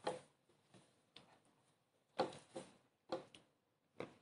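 A handful of faint, short taps at irregular intervals in a quiet small room, the loudest a little over two seconds in.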